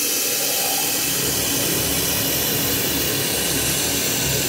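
LightWELD XC handheld laser welder running a wire-fed lap weld on stainless steel: a steady hiss with fine crackling spatter, cutting off suddenly at the end.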